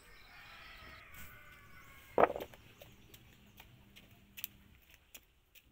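Knife working over freshly dug turmeric rhizomes, cleaning off roots and soil: scattered light ticks and snaps, with one sharp knock about two seconds in. A faint wavering tone sounds in the background during the first two seconds.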